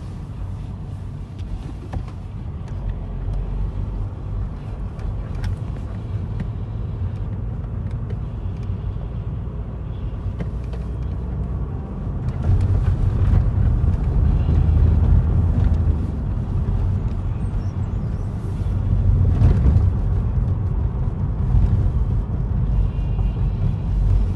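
Low, steady engine and road rumble inside a Navistar truck cab, growing louder about halfway through. The radio's music does not come through above it even with the volume turned up, which is the radio's fault of playing far too quietly.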